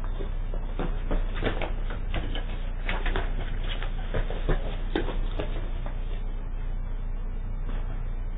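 Knocking on a front door: a run of irregular raps lasting about five seconds, picked up by a doorbell camera's microphone with a steady low hum underneath.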